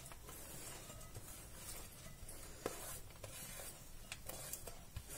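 Faint rustling and scraping of finely chopped cabbage being pushed off a steel plate into a glass bowl, with a few soft taps.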